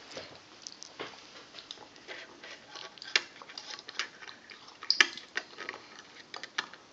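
Scattered small clicks and taps of hands handling crackers and plastic snack containers on a wooden tabletop, with two sharper clicks about three and five seconds in.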